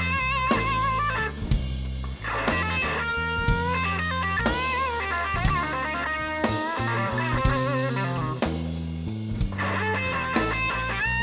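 Live blues-rock band: an electric guitar, a Gibson SG, plays lead lines with string bends and vibrato over bass and a drum kit.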